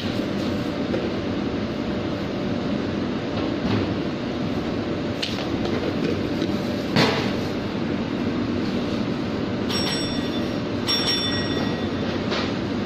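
Steady noise of a commercial kitchen, from its exhaust hood and stove. A sharp clatter of utensils comes past the middle, and two short electronic beeps sound near the end.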